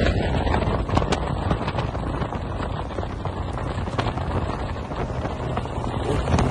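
Wind buffeting the microphone of a moving motorcycle, with the engine running steadily underneath.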